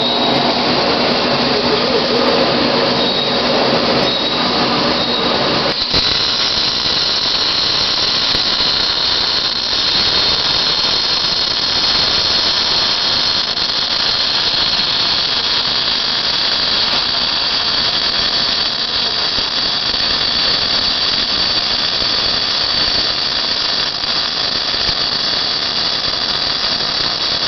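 MIG/MAG welding arc on steel plate, sizzling and crackling steadily as a bead is run. A low hum sits under it for about the first six seconds, then stops.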